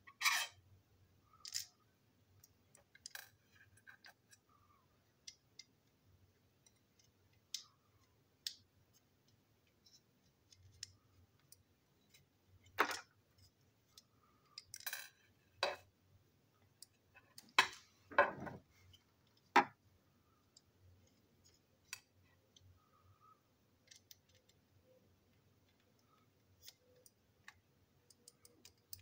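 Plastic parts of a model crane engine being handled and fitted: scattered light clicks and taps, with a run of louder clacks in the second half.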